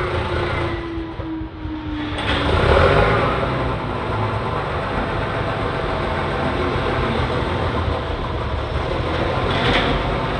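Diesel engine of a classic Mercedes-Benz 'Bagong' tow truck labouring under heavy load as it climbs a steep hill towing another truck, a steady low rumble that grows louder about two to three seconds in. A whine falls in pitch during the first two seconds.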